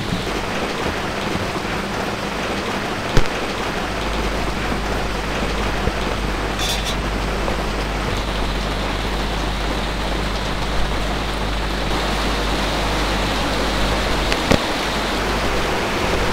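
Steady heavy rain falling on a vehicle, heard from inside. There are a few light knocks, and a low steady hum starts about four seconds in.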